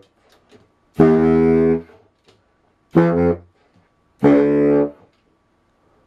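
Baritone saxophone played solo: three separate held notes, the first and last about a second long and the middle one short, with short silences between them.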